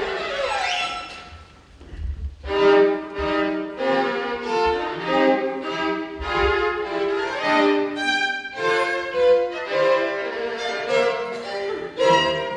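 Chamber string orchestra playing: sliding glissando figures at the start, a short drop in level about two seconds in, then a run of separate bowed notes with violins on top.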